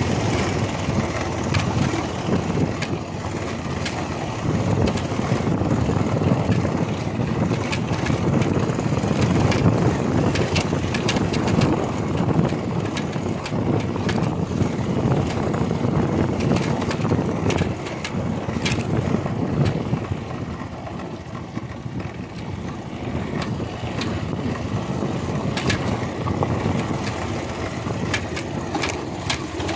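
Motorcycle running on the move: engine and road noise that rise and fall unevenly.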